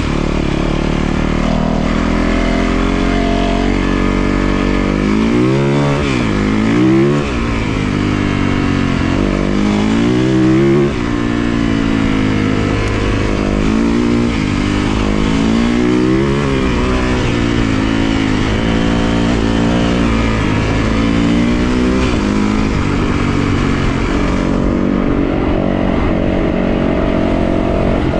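A 450cc four-stroke single-cylinder dirt bike engine being ridden, its pitch rising and falling again and again as the throttle is opened and closed.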